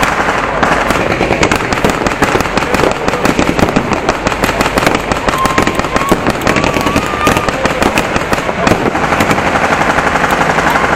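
Continuous blank gunfire in a staged battle, many shots from several weapons cracking in quick, overlapping, irregular succession without a pause.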